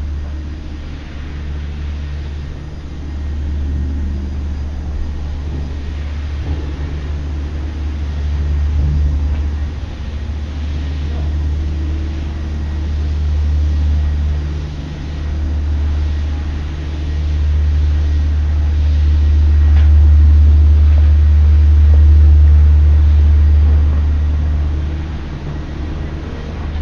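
Road traffic: a steady low rumble of vehicle engines, with an engine hum that comes and goes and swells louder past the middle.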